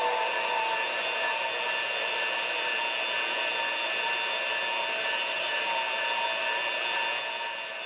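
Bosch GCB10-5 portable deep-cut band saw running: a steady motor whine with several fixed tones over a rushing hiss.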